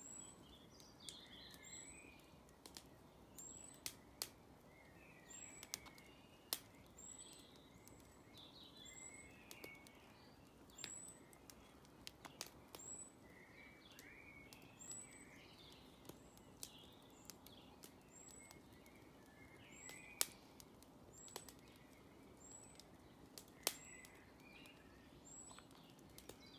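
Wood fire crackling in a metal fire pit, with irregular sharp pops, one near the end the loudest. Faint birdsong chirps through it.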